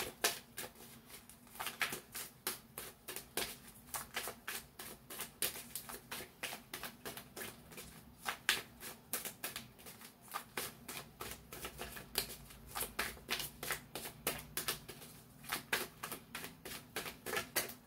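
A deck of tarot cards being shuffled by hand: fast, irregular clicking of card edges, several clicks a second.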